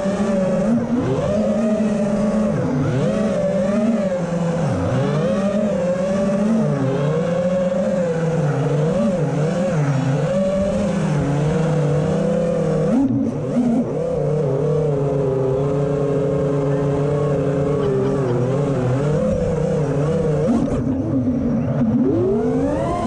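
FPV freestyle quadcopter's brushless motors and propellers whining in flight, the pitch swooping up and down with every throttle change. The pitch holds steadier from about halfway, then climbs sharply near the end as the throttle is punched.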